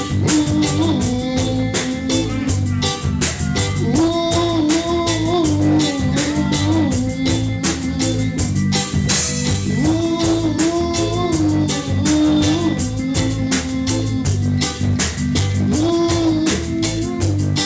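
Reggae music: a steady drum and percussion beat over a repeating bass line, with a melodic lead line that comes back in phrases and no words sung.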